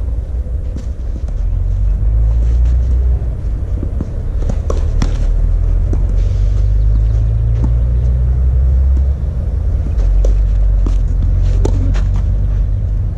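Tennis balls struck by rackets in a clay-court rally: sharp hits, a second or more apart, over a loud, steady low rumble.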